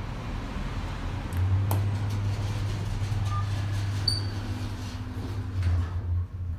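ThyssenKrupp Synergy traction elevator car riding between floors: a click about a second and a half in, then a steady low hum of the car in motion that fades just before the end, with a faint short high beep about four seconds in.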